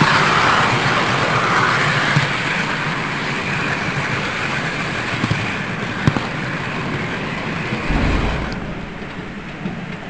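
Model train running along the layout track, a steady whir and rumble that fades after about eight seconds, with a few sharp clicks.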